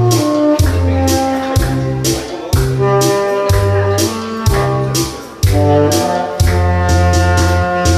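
Saxophone playing a melody over a backing track with a steady drum beat of about two hits a second and a bass line.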